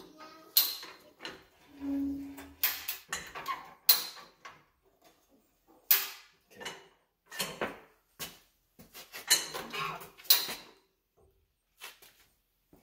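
Irregular sharp metal clanks and clinks, roughly one a second with short gaps, as steel plow parts and tools knock together while the old plow is being lifted for its wheels.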